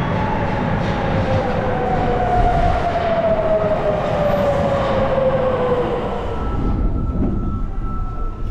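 Sapporo Municipal Subway Namboku Line train, a rubber-tyred 5000 series, pulling into the station over a steady rumble. Its motor whine falls steadily in pitch as it brakes over about six seconds, then the sound eases off near the end.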